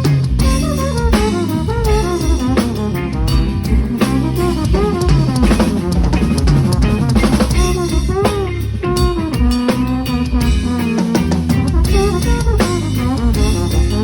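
Drum kit played along with a recorded song: bass drum, snare and rimshot hits over the track's bass line and melody.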